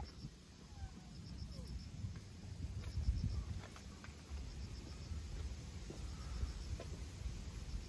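Insects chirping in short pulsed trills, faint and high, over a steady low rumble, with a few faint clicks as a cat eats.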